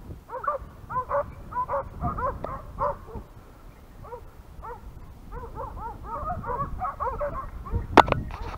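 A pack of hunting dogs baying and yelping in quick, repeated short cries, typical of hounds bringing a wild boar to bay. A single sharp knock near the end.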